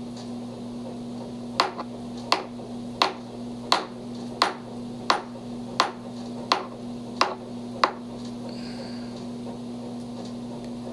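Ten sharp clicks, evenly spaced at about one every 0.7 seconds, starting a second and a half in and stopping near eight seconds, over a steady low electrical hum.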